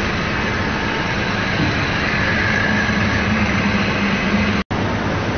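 Steady machinery noise of a continuous fryer production line running: drive motors and mesh conveyor giving a low hum under an even rushing noise. It drops out for an instant about four and a half seconds in.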